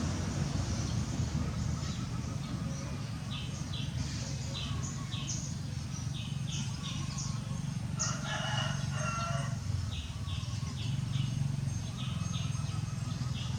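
A rooster crowing once, about eight seconds in, over small birds chirping in short, repeated high notes and a steady low rumble.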